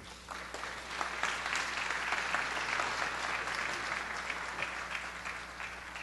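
Audience applauding, swelling over the first couple of seconds and fading away near the end.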